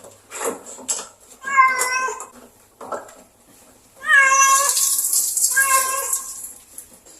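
Domestic cat yowling: three drawn-out meows, the longest starting about four seconds in, with a few sharp knocks in the first second. The cat is unhappy at being groomed.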